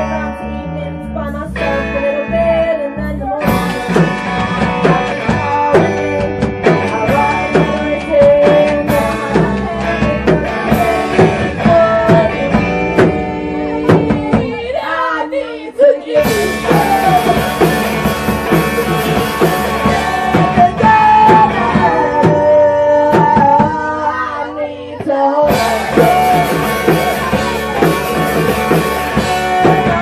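Live rock band playing loudly: electric guitar, bass guitar and drum kit, with a sung vocal line. The bass and drums drop out briefly about halfway through and again near 25 seconds, then come back in.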